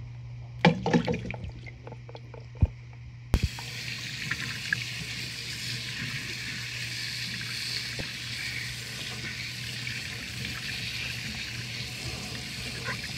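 A few sharp knocks and clicks, then about three seconds in, faucet water starts suddenly and runs steadily, splashing over a washing machine drain-pump filter held under the stream in a stainless steel sink.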